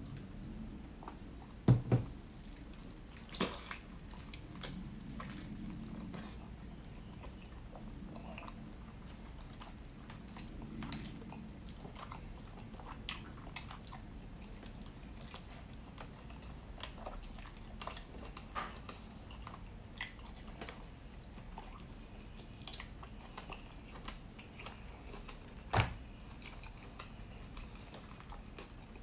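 Close-miked chewing of honey-glazed rotisserie chicken: wet mouth sounds and lip smacks. Scattered sharp clicks run through it, the loudest about two seconds in and again near the end.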